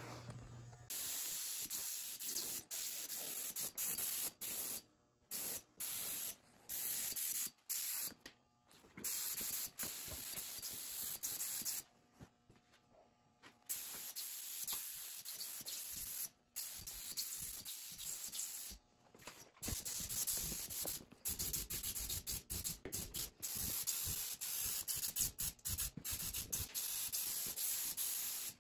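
Compressed-air paint spray gun hissing in stretches of one to several seconds as the trigger is pulled and released while it coats a steel fuel tank, with a longer break about twelve seconds in.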